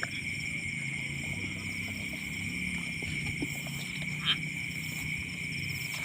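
Night chorus of insects and frogs: a steady high buzz, a fast pulsing trill above it and a low drone beneath, with one short sharp call about four seconds in.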